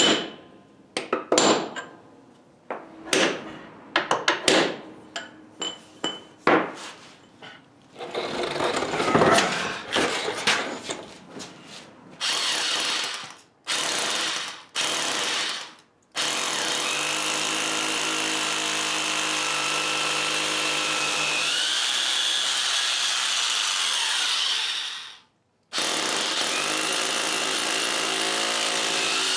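Hammer blows on a hand center punch marking a concrete floor, a dozen or so sharp strikes over the first eight seconds, followed by a few seconds of scraping. Then an electric hammer drill with a masonry bit starts in short bursts and runs steadily, boring anchor holes into the concrete slab. It stops abruptly near the end and starts again.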